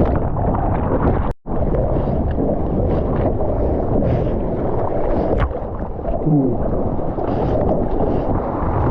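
Heavy wind buffeting the microphone over ocean surf, a steady low rumble. The sound drops out completely for a moment about a second and a half in.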